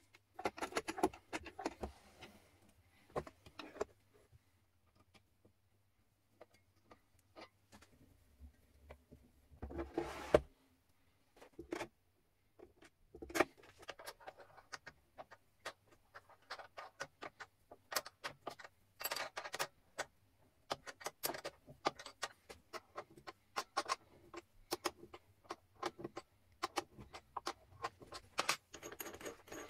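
Scattered metallic clicks, taps and rattles of a wrench and clamp fittings being handled as a drill press table's column clamp is adjusted and tightened, with a denser stretch of handling noise about ten seconds in. The drill press motor is not running.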